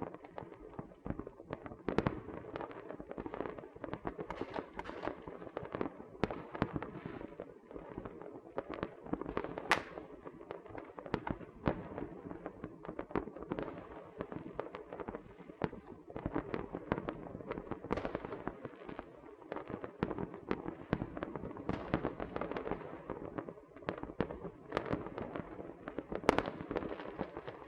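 Small fireworks and firecrackers going off continuously: a dense, irregular stream of sharp pops and cracks over a constant crackle, with a few louder bangs standing out, the loudest about ten seconds in and again near the end.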